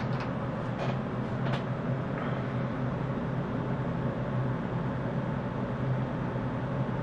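Tektronix TDS 784A oscilloscope just switched on and booting: its cooling fan runs steadily with a low hum, with a few faint clicks in the first two seconds.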